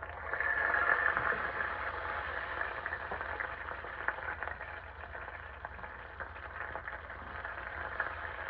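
Potato pieces frying in hot oil in a pan, a steady sizzle with fine crackles, louder for the first couple of seconds and then settling.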